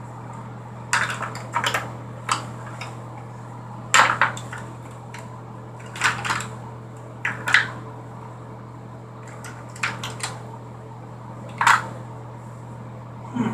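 Small hard items, such as makeup containers, clacking and clattering against each other in irregular knocks as someone rummages through them, over a steady low hum.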